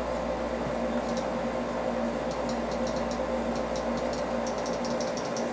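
Light clicks of a computer mouse, scattered at first and coming quicker near the end, over a steady room hum with a low and a middle tone.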